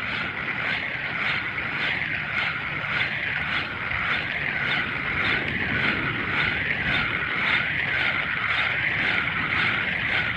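Fishing reel being cranked to retrieve line: a steady whirring that swells and fades in an even rhythm, a little under twice a second.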